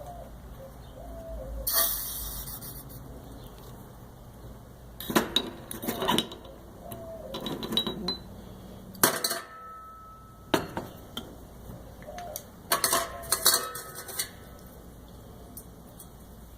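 Small metal tools and pieces clinking and clattering on a workbench, in irregular clusters of knocks and taps while soldering work is handled.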